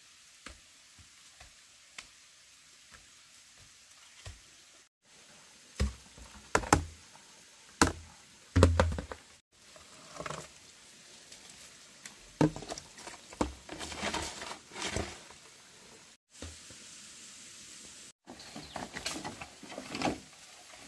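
Scattered footsteps and handling noises: soft knocks with a few heavier thumps about six to nine seconds in, and a busier stretch of clatter and rustling in the middle and near the end.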